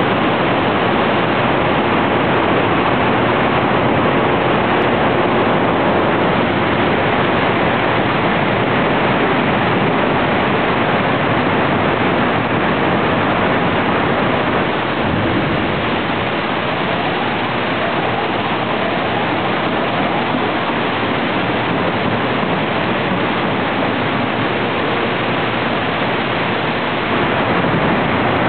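Steady, loud machinery noise of a hot strip steel mill in operation. Faint rising whines come in about halfway through.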